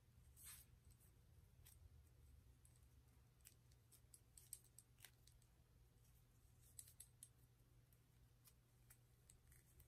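Near silence: faint, scattered small clicks and a brief rustle from fingers handling and winding thin cotton cord, over a low steady hum.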